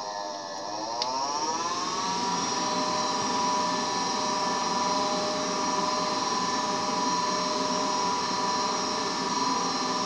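Gas furnace draft inducer motor whining. Its pitch dips, then rises to a steady running speed over the first two seconds, with a single click about a second in. It runs through the start-up sequence once water has been cleared from the pressure switch line.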